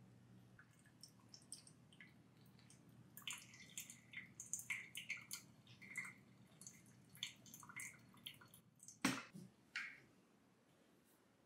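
Brewed coffee dripping from a Melitta ceramic pour-over dripper into a glass server: a run of quick, high plinking drops, thickest in the middle. About nine seconds in comes a single sharp knock, the loudest sound, and a smaller one just after.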